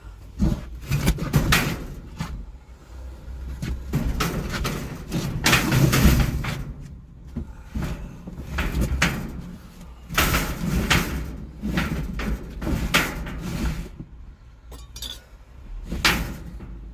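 Irregular knocks, clanks and rattles of hard objects being handled and set down, in clusters every second or so.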